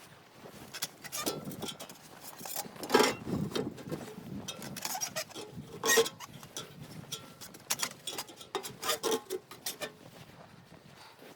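Irregular knocks and clinks of objects being handled, a few of them with a brief metallic ring.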